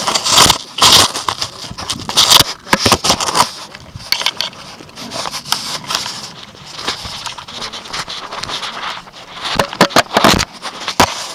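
Camera handling noise: something rubbing, scraping and knocking right against the camera body and its microphone, in loud irregular scrapes and crackles.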